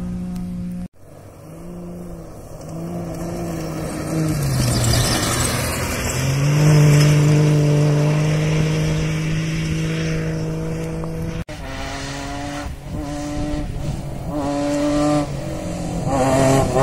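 Cross-country rally cars racing past at high revs. The sound cuts abruptly twice, about a second in and past the middle, each time to a different car. First comes an engine note held steady and growing louder, then one accelerating through the gears, its pitch rising and dropping several times.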